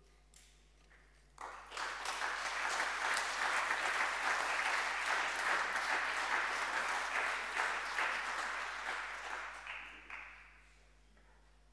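Congregation applauding, starting suddenly about a second and a half in and dying away after about nine seconds.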